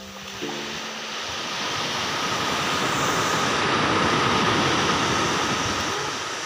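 Sea surf: a wave breaking and washing up the sand beach, swelling over a couple of seconds and then fading away.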